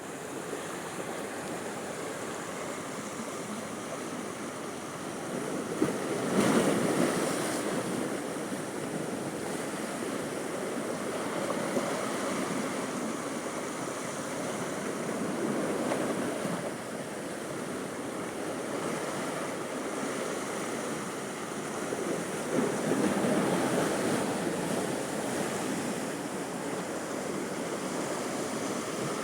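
Sea waves surging onto a beach at high tide: a steady wash of surf that swells three times, loudest a few seconds in as a breaker comes in, then twice more later.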